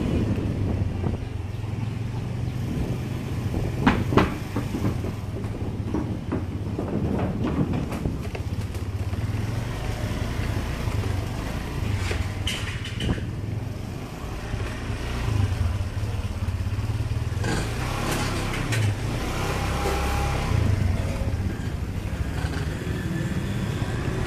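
An engine running steadily with a low hum, with scattered knocks and clatter over it, the sharpest about four seconds in.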